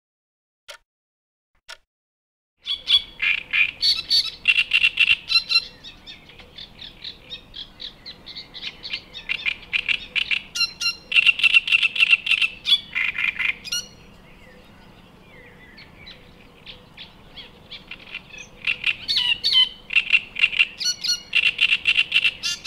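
Great reed warbler singing: loud, rhythmic strings of harsh, scratchy repeated notes in long phrases, with a lull of a few seconds in the middle. A few faint ticks about a second apart come before the song starts.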